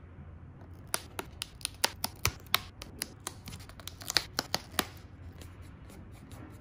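Die-cut paperboard wings on an instant-noodle cup's sleeve being torn out by hand along their perforations: a quick, irregular run of sharp little snaps and clicks as the tabs break, starting about a second in and stopping near five seconds.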